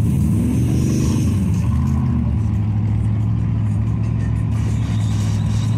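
Off-road vehicle engine revving up and down a couple of times in the first two seconds, then running steadily.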